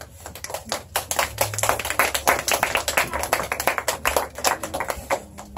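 A small group of children clapping by hand: a ragged round of applause that picks up about half a second in and thins out near the end.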